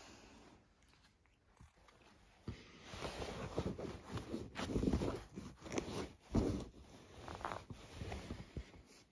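Dogs licking and grooming right against the phone's microphone, with fur brushing over it: irregular wet smacking and rustling that starts about two and a half seconds in.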